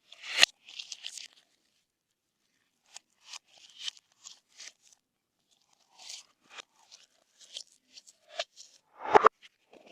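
Slime being mixed and pressed, giving irregular short crackles and pops with brief pauses between them. The loudest come at the start and about nine seconds in.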